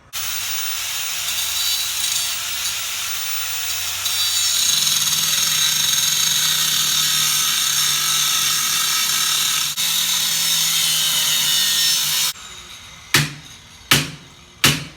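Power tool cutting through the old rusted steering-shaft tubing: a loud steady cutting noise with a whine that shifts pitch as it bites, dips once and cuts off after about twelve seconds. Then come three sharp knocks about a second apart.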